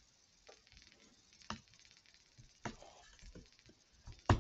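A handful of light computer keyboard and mouse clicks, about five separate taps spread over four seconds, the loudest just before the end.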